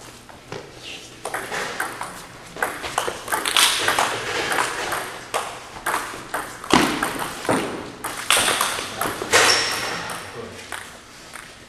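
Table tennis ball being hit back and forth in a rally: quick sharp clicks of the celluloid ball off the paddles and bouncing on the table, echoing in a large gymnasium.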